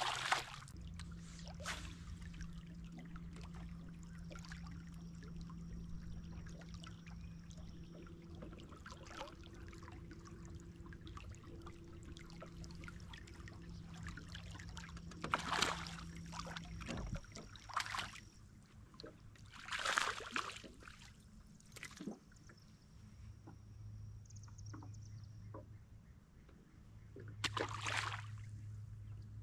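Water splashing and sloshing close to a small fishing boat: a splash right at the start as a released bass drops into the water, several short splashes through the middle, and near the end a hooked bass thrashing at the surface. A low steady hum runs underneath for the first half and comes back briefly near the end.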